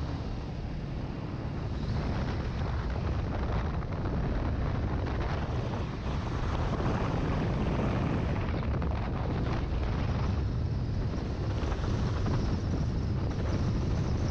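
Wind rushing over a helmet-mounted microphone, over the steady drone of a 2019 Honda CBR500R's parallel-twin engine cruising at speed. It grows a little louder about two seconds in and again about six seconds in.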